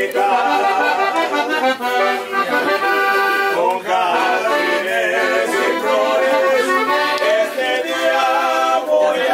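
Accordion-led music playing steadily, with no clear singing.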